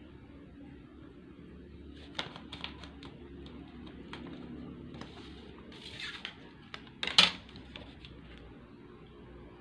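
Plastic drafting triangle and ruler being moved and set down on paper: scattered light clicks and taps, a brief sliding rustle, then a sharper clack about seven seconds in.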